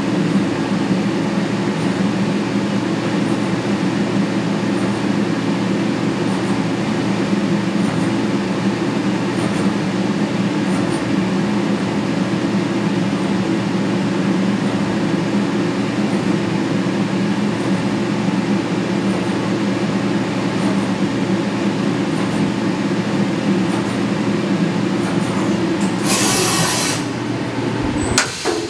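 CNC vertical mill running steadily while peck-drilling a small hole in stainless steel. Near the end come two short, loud bursts of hiss as the machine goes to change tools.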